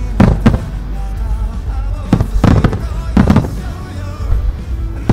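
Aerial firework shells bursting overhead, booming in quick pairs near the start, at about two seconds and at about three seconds, with a pop song playing underneath.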